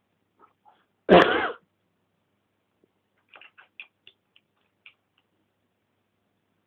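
One loud, harsh, cough-like burst lasting about half a second, about a second in. It is followed by a scatter of faint small clicks as a dog gnaws at a toy held between its paws.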